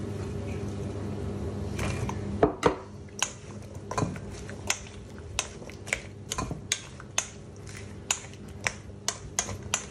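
Wooden spoon knocking and scraping against a stainless steel mixing bowl while a dressed salad is tossed. It is a run of sharp, irregular clicks, a few each second, starting about two seconds in over a low steady hum.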